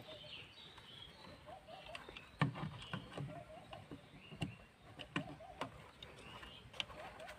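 Hands handling a plastic switch plate and controller module with loose wires, giving several light clicks and knocks at irregular intervals. Birds call softly in the background.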